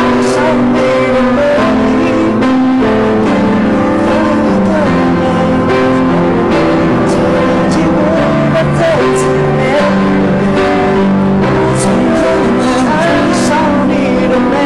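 A pop song playing: held chords changing every second or so, with a voice singing over them.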